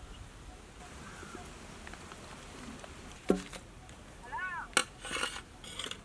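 Steel spatula clinking and scraping against a metal pan: a sharp clink a little past halfway, then another clink and a few short scrapes near the end.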